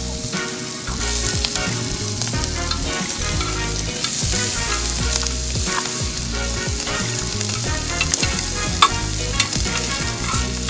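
Food frying in a pan, sizzling with many small crackles, over steady background music.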